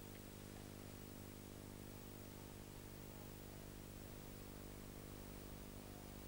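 Faint steady electrical hum with a layer of hiss: the background noise of an old recording, with no other sound.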